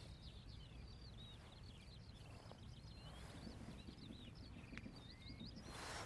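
Small birds singing: a steady run of short, high, twittering notes over a low background rumble, with a brief rush of noise near the end.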